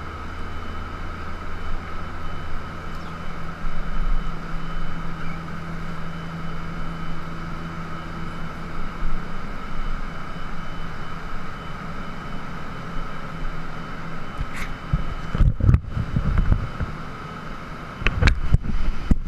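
Steady mechanical hum with a constant tone and a low rumble, alongside churning water. About fifteen seconds in, and again near the end, the camera is knocked and rubbed in handling; these are the loudest sounds.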